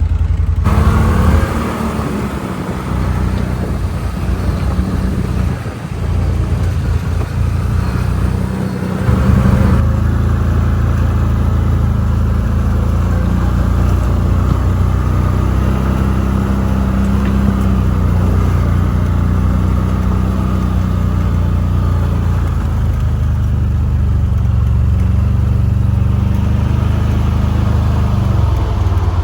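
CFMOTO quad bike engine running steadily while riding, its note shifting a little with the throttle, with brief dips in loudness a few times.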